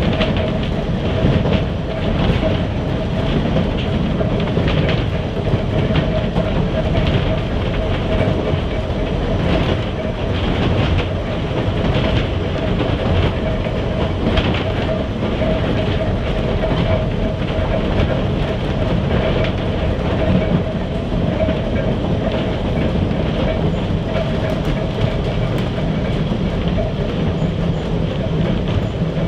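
Manx Electric Railway Vestibuled Saloon No.6, an electric tramcar, running along the track, heard from inside the car: a steady rumble and whine with repeated clickety-clack clicks of the wheels over the rail joints.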